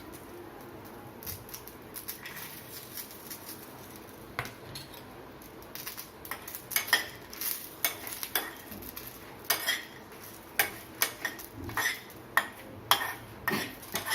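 A spoon stirring roasting coconut and chilies in a pan, scraping and clinking against the pan in irregular knocks that come more often from about six seconds in.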